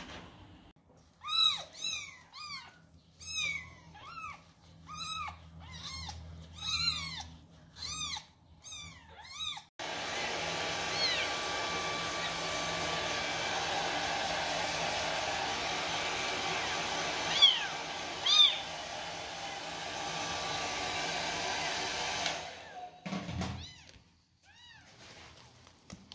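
Very young kittens mewing over and over, thin arched cries about once a second. About ten seconds in a hair dryer starts and runs steadily for some twelve seconds while a kitten is dried, with a few more mews over it, then cuts off.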